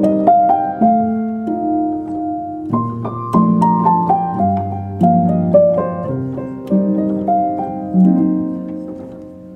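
Background piano music, gentle notes and chords, each note struck and left to fade.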